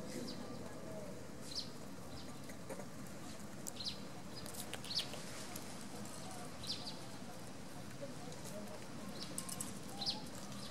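Scattered short, high-pitched animal chirps, several in a few seconds, over a steady outdoor background hiss.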